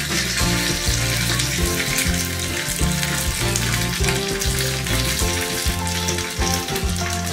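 Curry leaves and dried red chillies sizzling in hot oil in a small tempering pan, a steady hiss of frying. Background music with a low bass line plays underneath.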